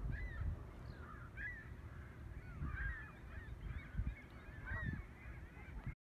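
Common goldeneye ducklings peeping over and over in short, high, up-and-down calls, over a low rumble. The sound cuts off abruptly just before the end.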